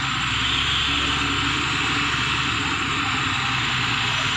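Diesel engine of a Mitsubishi Fuso truck laden with oil palm fruit bunches, running steadily under load as it climbs a steep hill.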